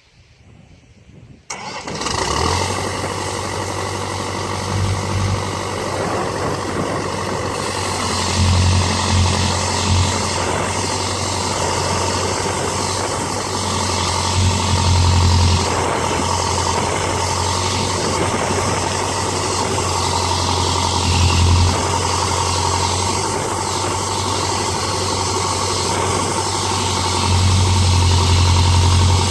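A homemade sawmill's engine starts about a second and a half in, then runs steadily with a deep hum, swelling louder a few times.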